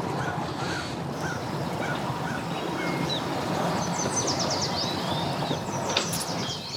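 Steady outdoor background noise, with a small bird chirping about twice a second for the first few seconds and a quick high trill of bird song about four seconds in.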